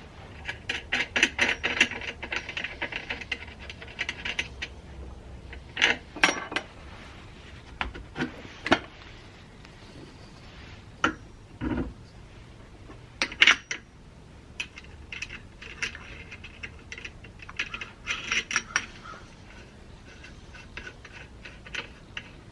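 Small metal pieces clinking and rattling against each other and a hard surface, in clusters of quick, ringing clinks separated by quieter pauses.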